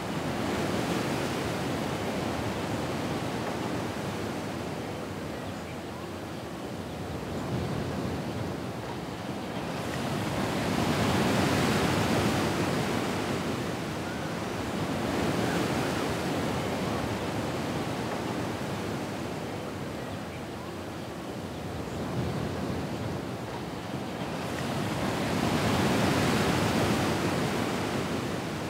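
Ocean waves surging onto a shore and drawing back in slow, irregular swells. The biggest surges come about a third of the way in and again near the end.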